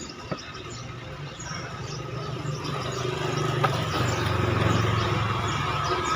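A motor vehicle's engine passing close by, growing louder to a peak about five seconds in and then easing off, with a couple of sharp clicks.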